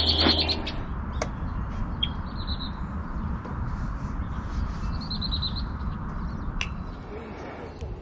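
Marsh songbirds calling: a louder call at the very start, then two short, rapid, high trills about two and five seconds in. A steady low rumble runs underneath, and two sharp ticks come about one and six and a half seconds in.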